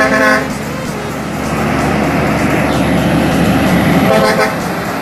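Semi-trailer truck's diesel engine running as it approaches, growing louder, with two short horn blasts: one at the start and another about four seconds in.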